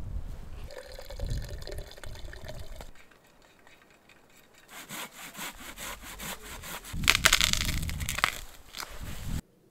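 Hand saw cutting through a log: rapid back-and-forth strokes starting about five seconds in, loudest near the end, then cut off suddenly.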